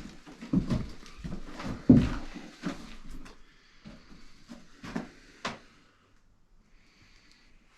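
Irregular knocks and clunks of objects being handled and moved about, loudest about two seconds in and dying away after about five and a half seconds.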